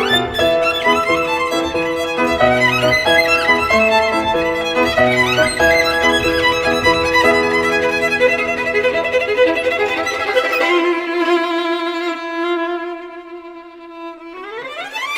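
Instrumental music led by a bowed violin playing sustained notes over a low accompaniment. About 11 seconds in the accompaniment drops away, leaving one held note that grows quieter, and near the end a quick upward slide.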